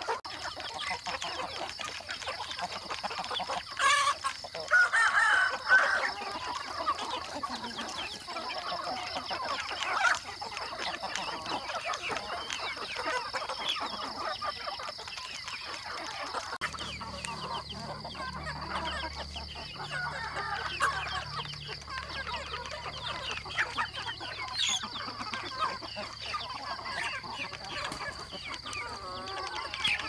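A flock of chickens clucking and calling while feeding, with a rooster crowing a few seconds in. A steady high-pitched drone sits behind them.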